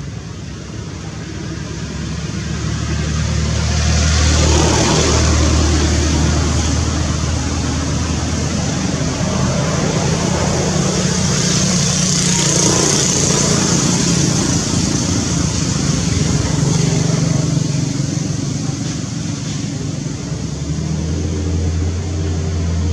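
A motor vehicle engine running, with a rushing noise over a steady low hum. It swells over the first four seconds and then holds steady.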